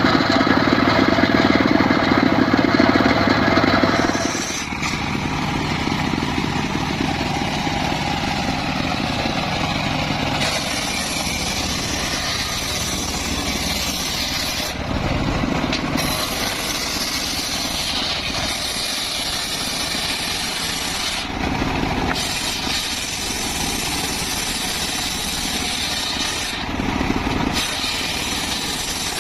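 Large circular saw cutting mahogany, its motor running steadily throughout. The cutting noise comes in repeated passes a few seconds long, with brief letups between them, and is loudest in the first few seconds.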